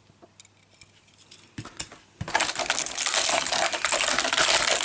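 A few light clicks, then from about two seconds in a loud, dense crackling of a thin plastic blister tray as a 1:64 diecast car is pried out of it.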